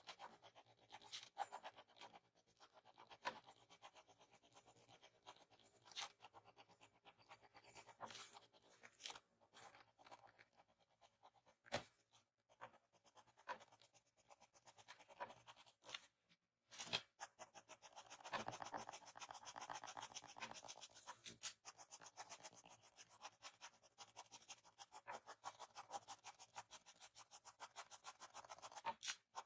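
Mechanical pencil scratching faintly on paper in quick, short, repeated strokes, with a few louder strokes and a brief break about halfway through.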